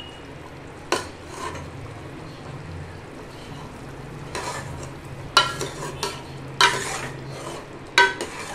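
Metal ladle stirring a thick mutton curry in a metal pot, over a faint sizzle of the simmering curry. Four ringing clinks as the ladle strikes the pot: one about a second in, and three close together in the second half.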